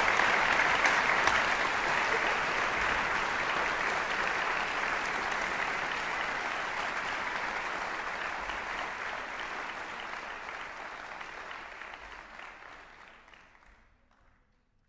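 Audience applauding, the clapping slowly dying away and fading out over the last few seconds.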